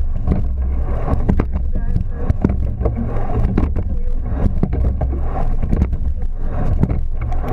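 Sweep-oared racing shell under way at race pace: a sharp knock of the oars and oarlocks at each stroke, about once a second, over a steady rush of wind on the microphone and water along the hull.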